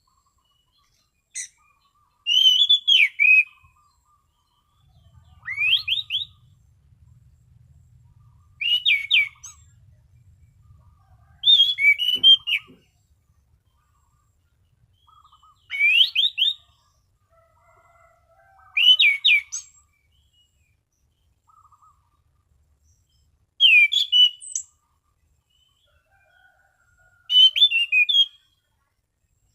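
Anis cendana thrush singing in clear whistled phrases, each about a second long and made of quick rising and falling notes, repeated about every three to four seconds. This is the steady, unhurried 'ngeplong' style of song.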